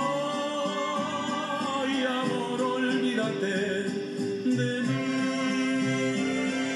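Ranchera song: a singer holds a long wavering note over the accompaniment, which then carries on with a steady bass pulse.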